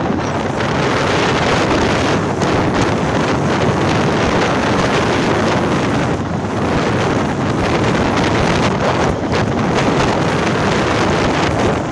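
Loud wind noise buffeting the microphone on a moving motorcycle, an even, fluttering rush that covers the engine and tyres.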